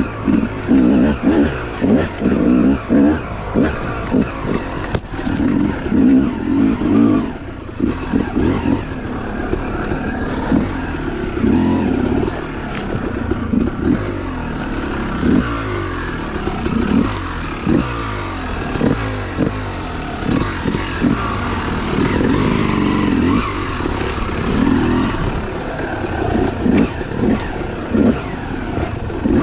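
Yamaha YZ250X two-stroke single-cylinder dirt bike engine revving up and falling back over and over as the throttle is worked on and off through tight woods single track.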